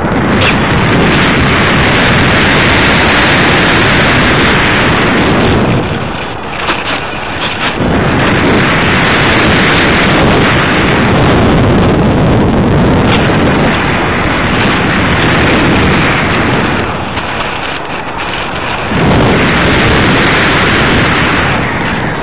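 Loud rushing wind buffeting the microphone of a camera riding on a ParkZone Radian RC glider in flight. It eases off briefly twice, about six seconds in and again near the end.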